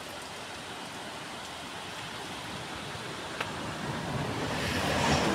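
Steady rushing outdoor noise with no distinct pitch, swelling over the last second or so, with a single faint click about three and a half seconds in.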